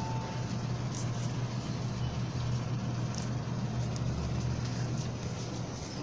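Steady low mechanical hum over a rush of even background noise, with a brief thin tone at the very start and a few faint ticks.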